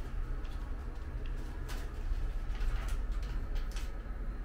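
Elevator car running between floors: a steady low rumble and hum, with a few faint clicks.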